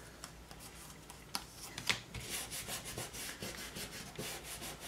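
Fingers rubbing glued paper down onto a cardboard cut-out: a few light taps, then from about two seconds in quick repeated rubbing strokes, about four a second.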